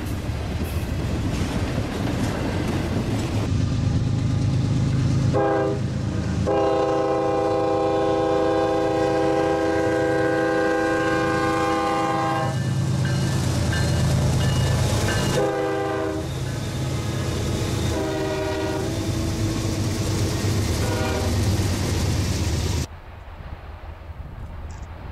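Freight train rumbling and clattering along the rails, then a diesel locomotive's multi-note air horn sounding for a road crossing: a short blast, one long blast of about six seconds, then several shorter blasts over the engine and wheel noise. Near the end the sound drops abruptly to a faint rumble.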